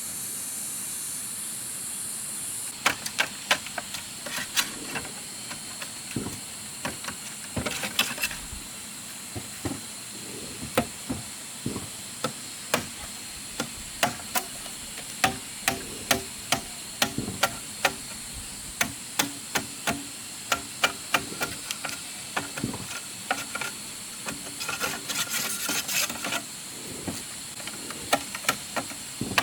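A series of sharp, irregular knocks and taps, one to three a second, over a steady high hiss. The knocks start about three seconds in and come in quicker clusters twice.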